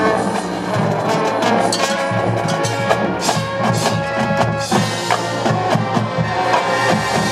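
Marching band playing: held brass chords over a busy run of sharp percussion hits.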